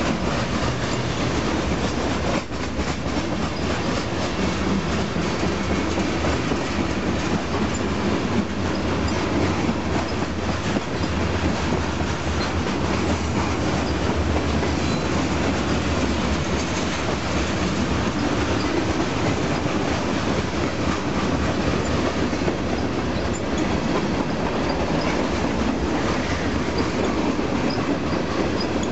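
Freight train cars rolling past at speed: a steady loud rumble and rattle of steel wheels on rail, with repeated clicking over the rail joints.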